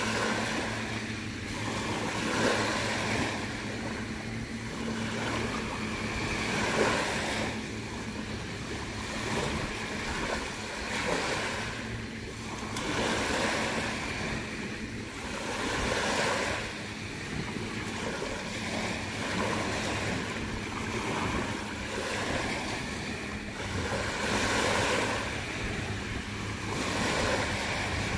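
Small sea waves washing onto the shore, the wash swelling and ebbing about every two seconds. A faint steady low hum runs underneath.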